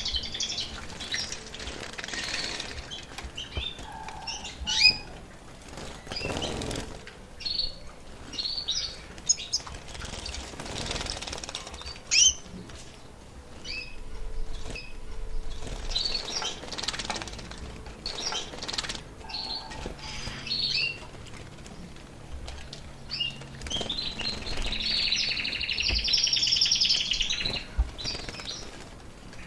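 Caged canaries chirping and fluttering, with short sharp calls scattered throughout and a rapid trilled song near the end: the birds are coming into breeding condition.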